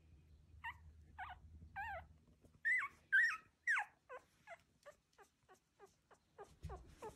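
Newborn miniature Schnauzer puppy whimpering: a string of short, high, squeaky cries, the three loudest around the middle, then quicker, shorter cries that slide down in pitch.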